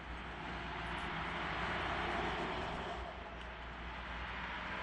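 Rushing noise of a passing vehicle, swelling to a peak about two seconds in and easing off.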